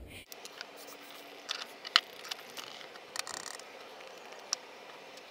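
Scattered light clicks and taps of small parts being handled and fitted as a Vaterra Twin Hammers 1/10 RC rock racer is put back together, the sharpest click about two seconds in.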